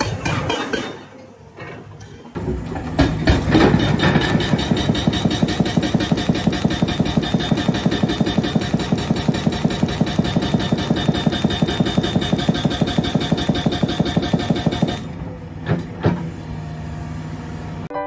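Hydraulic breaker hammer on a Caterpillar excavator pounding rock: a rapid, even hammering of about six blows a second, starting about two seconds in and stopping near the end, over the excavator's diesel engine. After the hammering stops the engine runs on with a couple of single knocks.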